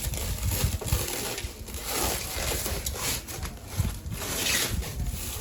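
Packaging being handled while a boxed table cooling fan is unpacked: irregular rustling and scraping, with a few sharper handling knocks.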